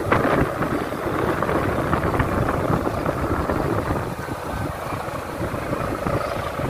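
Gift-ribbon hummers (sendaren) stretched on the bamboo bows of flying bat-shaped kites, buzzing in a steady, rough drone.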